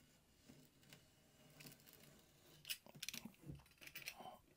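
Faint scraping and small clicks of a sharp snap-off knife drawn along a metal straight edge, scoring wood veneer, with most of the clicks in the second half.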